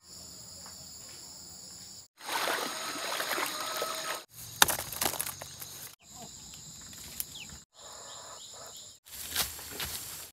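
A run of short outdoor clips that change every couple of seconds. Several carry steady high-pitched insect buzzing; others have louder rustling and sharp knocks. Near the end come footsteps on dry leaf litter.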